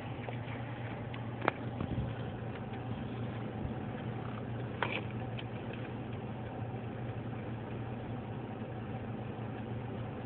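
Car engine running with a steady low hum, with a sharp click about a second and a half in and another about five seconds in.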